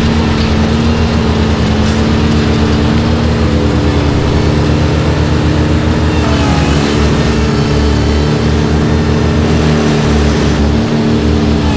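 Ventrac compact tractor's engine running steadily at working speed, its pitch dipping briefly about halfway through and then recovering.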